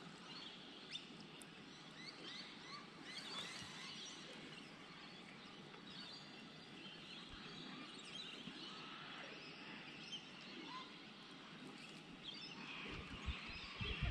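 Faint chorus of small birds chirping, many short scattered calls over a low background hiss, with a few low thumps near the end.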